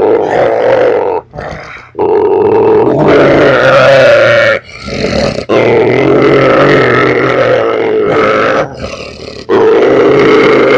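German Shorthaired Pointer growling loudly in long, drawn-out rumbles. There are four stretches of growling, split by three short pauses for breath. It is a growl the dog makes while being cuddled, which the owner says is not aggression.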